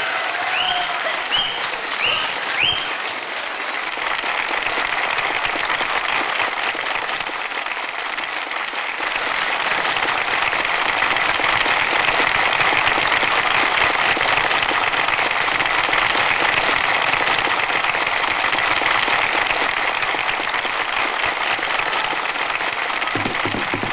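Hall audience applauding for a long stretch, getting louder about ten seconds in. A few short high whistles sound over the clapping in the first seconds.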